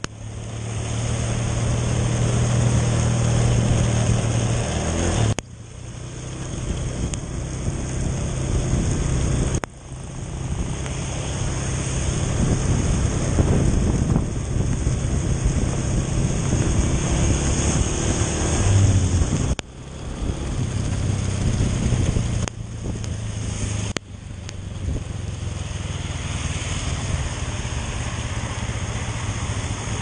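Motor scooter engine running while riding, under a steady rush of wind and rain noise. The sound cuts off and restarts abruptly several times.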